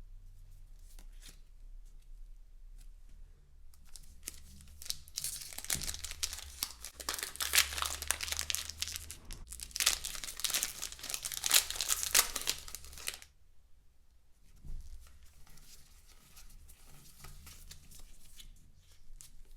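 Plastic packaging on a Pokémon TCG collection box being torn open and crinkled by hand. Faint taps and handling at first, then a loud stretch of tearing and crinkling from about four seconds in that stops short at about thirteen seconds, followed by softer rustling.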